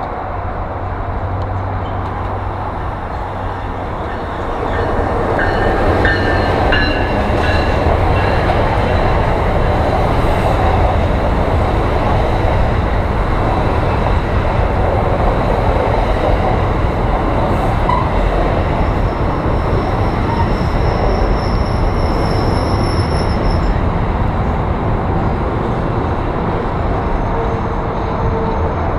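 NJ Transit commuter train of multilevel coaches passing close by, a loud steady rumble of wheels on rail that builds about four or five seconds in. A thin high wheel squeal comes in about two-thirds of the way through.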